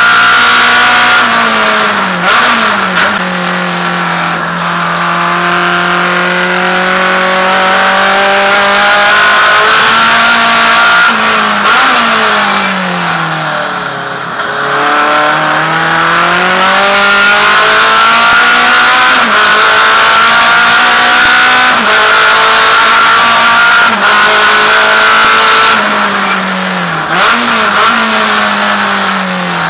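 Naturally aspirated Alfa Romeo race car engine heard from inside the cockpit, revving up hard with a sharp drop in pitch at each gear change every few seconds. About midway the revs fall away through several downshifts, then build up again through the gears.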